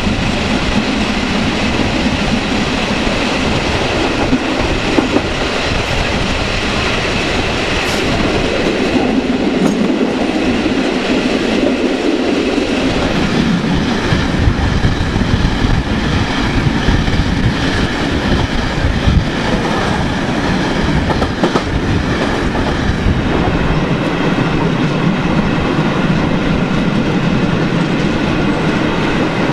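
Passenger train running at speed, heard from an open carriage window: a steady, loud noise of wheels running on the rails, with faint steady high-pitched tones over it from about midway.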